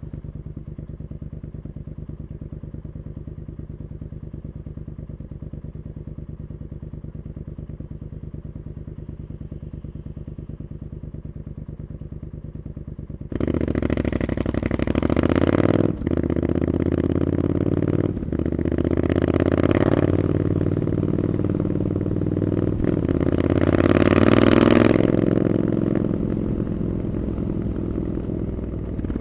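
Triumph Scrambler 900's parallel-twin engine through an Arrow aftermarket exhaust, idling steadily, then about halfway through pulling away hard. The revs climb, drop briefly twice at quick gear changes, rise to a peak and ease off near the end.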